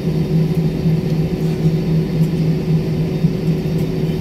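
Airliner cabin noise while the plane taxis after landing: the engines and airflow give a steady rumble with a low droning hum.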